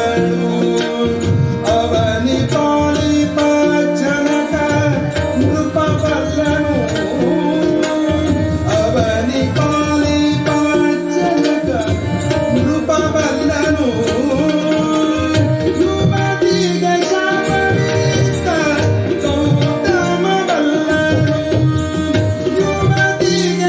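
Kannada devotional bhajan performed live: tabla strokes and harmonium accompanying a male singer, with no break in the music.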